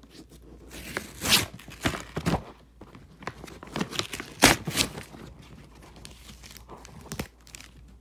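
Brown paper mailer being ripped open by hand: irregular bursts of paper tearing and crinkling, loudest about a second in and again around four and a half seconds.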